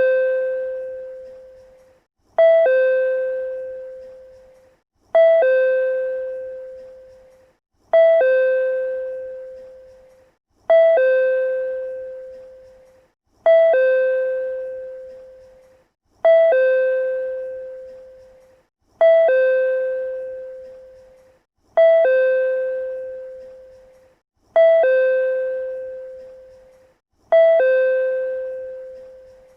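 PRC-type two-note chime repeating over and over, about every 2.75 seconds. Each chime is a brief higher note falling to a longer lower note that fades out.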